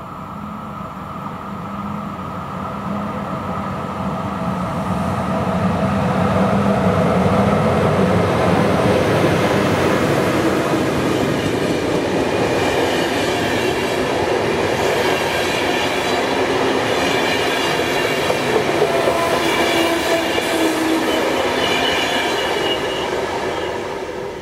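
Electric locomotive hauling passenger coaches, approaching and passing close by. A low hum as it nears gives way to the steady running noise of wheels on rail as the coaches roll past, growing louder over the first several seconds.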